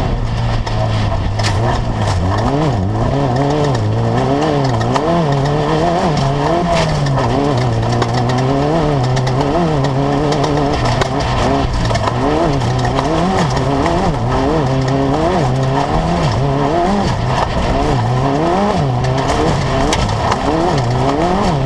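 Class 10 off-road race buggy engine under hard driving, its pitch rising and falling about once a second as the throttle is worked, with frequent knocks and rattles.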